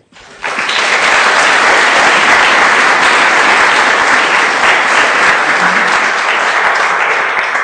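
Audience applauding steadily, starting about half a second in.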